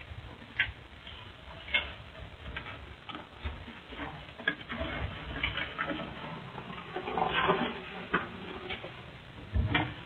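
Scattered light clicks and taps, with a busier patch of rustling and tapping around seven to eight seconds in, picked up by a doorbell camera's microphone.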